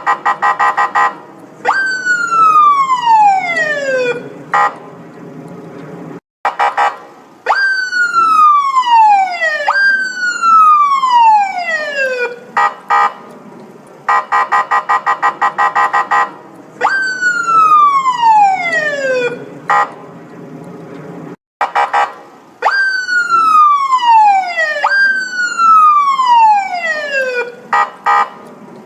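Electronic police siren cycling through a rapid pulsing burst and long falling sweeps, each sweep dropping in pitch over two to three seconds; the pattern repeats about every 15 seconds.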